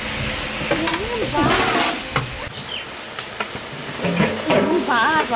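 Large cooking pan sizzling and hissing as a basketful of boiled giant taro root (maan kochu) is tipped into it. Brief women's voices sound over it twice.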